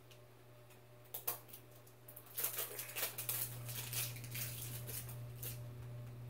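Plastic wrapping crackling and clicking as a L.O.L. Surprise toy ball is peeled open by hand: a few clicks about a second in, then dense crackling from about two and a half seconds.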